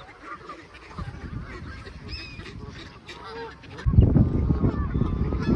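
Geese and ducks honking and calling over one another, in many short rising and falling calls. About four seconds in, a loud low rumble sets in and becomes the loudest sound.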